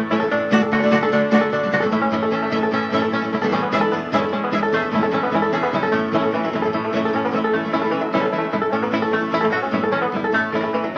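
Instrumental break of a country/bluegrass song: plucked string instruments picking a quick, busy melody between sung verses.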